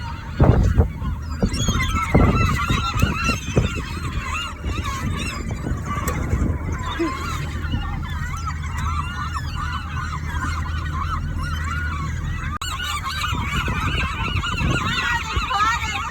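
A crowd of gulls calling, many overlapping squawks one after another, with a low steady rumble underneath.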